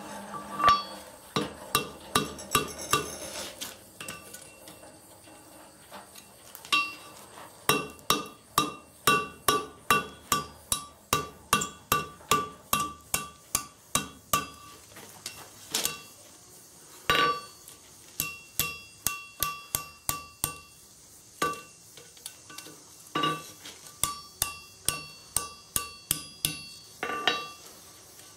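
Hand hammer striking red-hot steel over the horn of an anvil, forging a file into a flint striker: runs of blows about two a second, each with a metallic ring, broken by short pauses.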